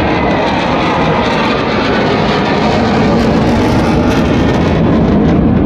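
Jet engine noise from a fighter jet flying overhead: a loud, steady rushing sound that builds slightly toward the end.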